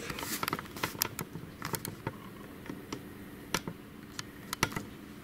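Irregular light clicks and taps of small metal and plastic parts being handled and fitted into a laser printer's fuser assembly. The clicks come thick in the first two seconds, then thin out to a few sharper single clicks.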